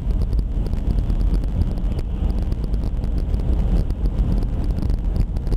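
Car on the move: a steady low rumble of road and engine noise, with wind buffeting the microphone.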